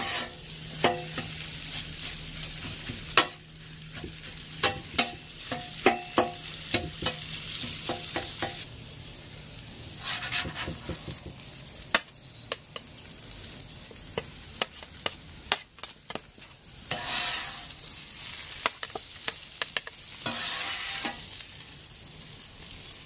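Metal spatula clacking and scraping across the steel top of a 17-inch Blackstone griddle while potato hash sizzles, with many sharp taps. Longer scrapes come about ten seconds in and again near the end, as the hash is scooped off onto a tray.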